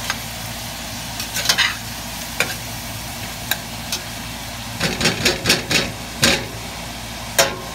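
Spatula scraping and stirring ground beef with diced carrot and onion in a stainless steel pot, breaking up the meat as it browns, over a steady sizzle of frying. Single scrapes come every second or so, with a quick run of about five scrapes around five seconds in.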